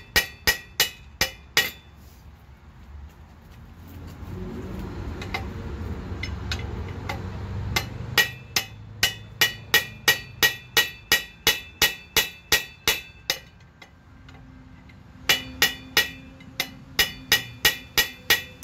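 Hammer blows on a steel drift rod set against the seized collar of an Allis Chalmers tiller mule drive, driving it off its shaft: sharp ringing metal strikes at about three a second, in three runs with pauses between. A low rumble swells and fades in the pause about a third of the way in.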